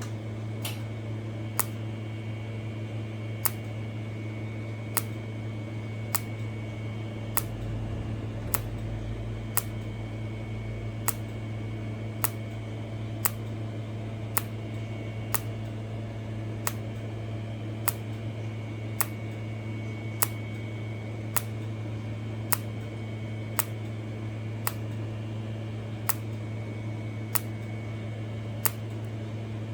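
Micro TIG welder in spot mode on 0.1 mm stainless steel sheet, firing a short arc pulse about every second and a bit, each a sharp click, over the steady hum of the welding equipment.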